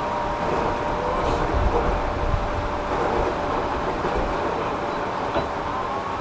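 Running sound heard inside the passenger car of a JR 205-series electric train in motion: a steady rumble of wheels on the rails with a faint steady whine above it.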